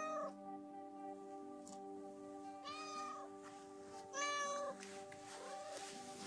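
Orange tabby cat meowing four times in short calls a second or so apart, the third the loudest and the last faint, over background music with steady held notes. The calls are the cat asking for attention and petting, which it does even when fed.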